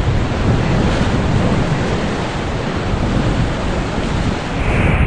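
Whitewater rapids rushing around an inflatable raft: a steady, loud wash of water noise, with a heavy low rumble of wind on the microphone.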